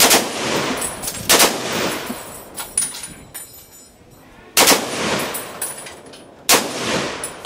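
Belt-fed M30 machine gun firing four loud reports, spaced irregularly over several seconds, each echoing briefly under the range's roof.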